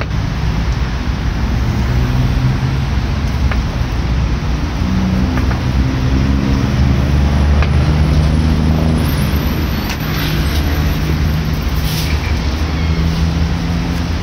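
Road traffic running close by: a steady low rumble of vehicle engines that swells a little in the middle. A few faint clicks of a knife on a wooden cutting board sit under it.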